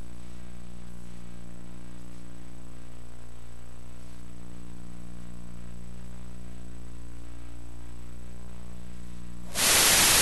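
Steady electrical hum on the broadcast audio line, a low buzz with many evenly spaced overtones that does not change. Near the end it cuts over suddenly to a loud, even hiss.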